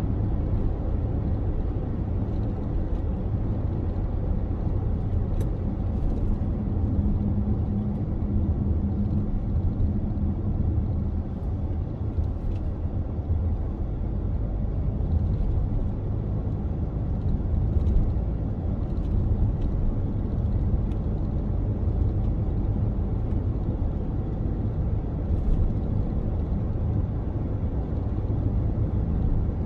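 Car driving along a highway: a steady low rumble of engine and tyre road noise. A faint low hum swells for a few seconds near the start.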